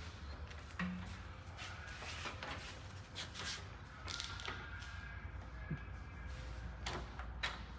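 Light clicks and knocks, scattered over several seconds, as the support cables are unhooked from a toy-hauler ramp door.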